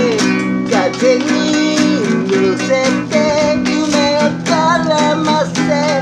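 Acoustic guitar strummed with a capo on the neck, with a man singing a melody over the chords.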